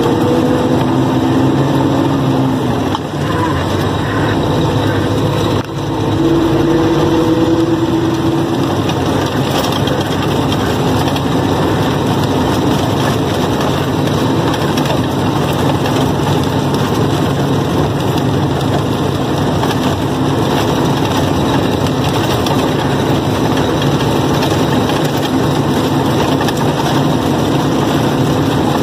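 Heavy truck's diesel engine running as the truck drives slowly, heard from inside the cab: a steady drone, with a brief steady higher tone in the first second and again about six seconds in.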